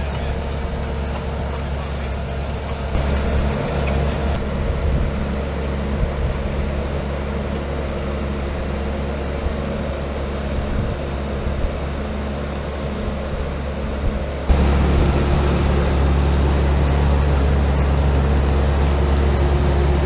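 Tractor diesel engine running steadily while drawing a cable plough that lays microducts. About fourteen seconds in it jumps louder and closer.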